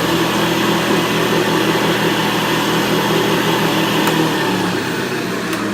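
Vintage Hoover upright vacuum cleaner running steadily: a constant motor hum with rushing air, easing off slightly near the end.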